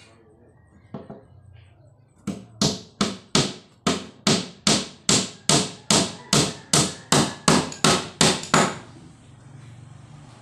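Claw hammer driving a nail into a wooden speaker-box panel: two light taps to start the nail, then a quick, even run of about twenty strikes, roughly three a second, stopping near the end.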